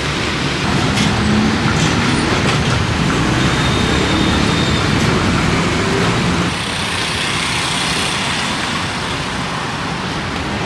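Steady street traffic noise from passing road vehicles, dipping slightly about six and a half seconds in.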